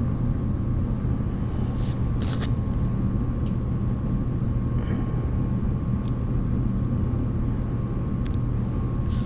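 Steady low hum of background noise, with a faint steady high tone. Several faint clicks as pliers grip and bend thin wire.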